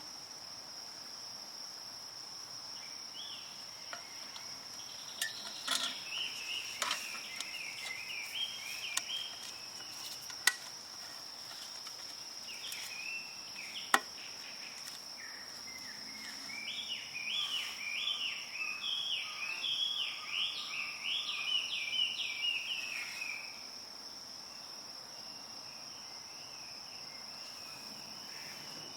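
A steady high-pitched insect drone, with a bird singing runs of quick chirping phrases for much of the time. Two sharp clicks sound about ten and fourteen seconds in.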